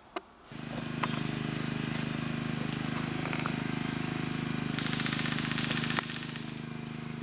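A steady low mechanical drone, like a motor running. About five seconds in comes a rapid rattling burst lasting just over a second that stops abruptly, fitting an airsoft electric gun firing full-auto.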